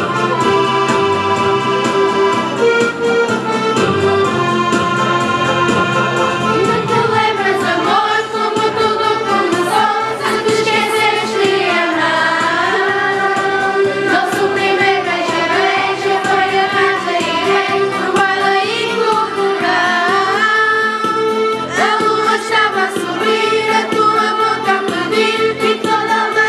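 A children's choir singing a folk song in unison to an electronic keyboard. The keyboard plays alone for the first seven seconds or so, then the voices come in and carry the melody.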